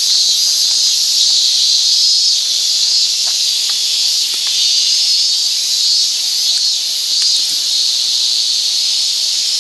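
A loud, steady chorus of summer insects: a continuous high buzzing drone, with a still higher trilling layer that switches on and off every half second or so.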